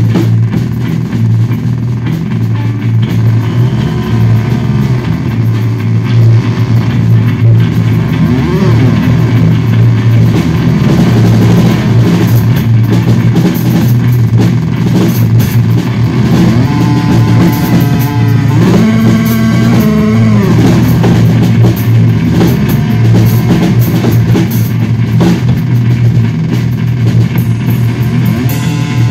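Electric bass guitar through effects pedals holding a loud, steady low drone, with gliding, wavering tones sweeping above it, while a drum kit plays on with continuous cymbal and drum hits.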